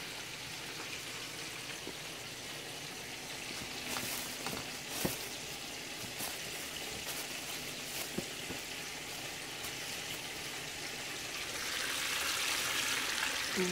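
Hot oil frying with a steady sizzle in a large pot. The sizzle swells about three-quarters of the way through, as a cornmeal-coated ocean perch fillet is lowered into the oil. A few faint knocks and rustles come midway, from the fish being dredged in cornmeal.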